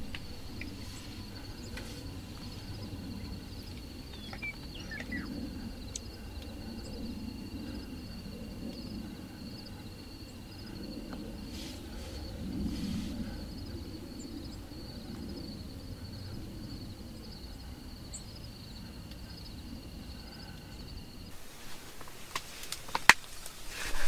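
Quiet open-country ambience: insects trilling steadily with a low rumble of wind and a few faint bird chirps. The insect sound stops about three seconds before the end, and shortly after a single sharp snap is heard.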